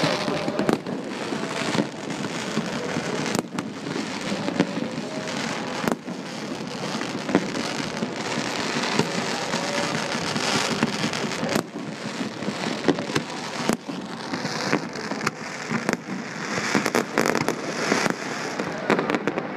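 Fireworks display: a continuous dense crackling, broken by many sharp bangs, with the crackling thicker and brighter in the last few seconds.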